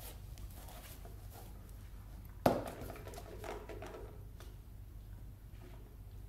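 One sharp knock about two and a half seconds in, with a brief ringing after it, among soft taps and rustles as a golden retriever noses toys on a woven mat.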